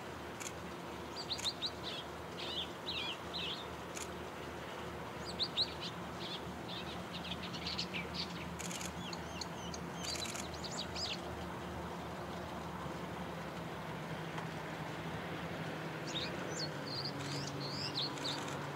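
Small birds chirping and twittering in scattered bursts over a faint, steady low drone from a distant DD56 diesel locomotive approaching; the drone deepens and grows a little louder in the last few seconds.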